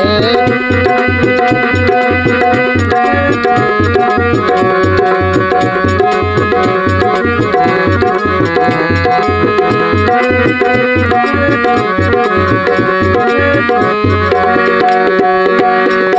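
Instrumental interlude of a Hindi devotional song: a hand drum, tabla-like, beats a steady rhythm of about two strokes a second under a melody of held notes.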